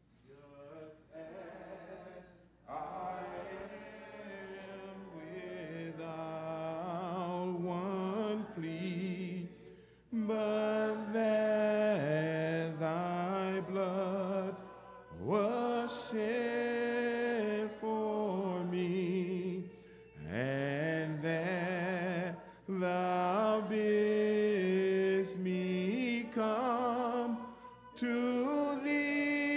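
A congregation singing a hymn a cappella, in phrases of held notes with short breaks between them.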